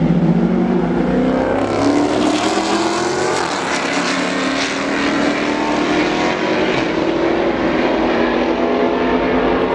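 Two Dodge Challengers launching side by side in a drag race, their engines accelerating hard, the pitch climbing, dropping back at gear changes and climbing again as they pull away down the strip.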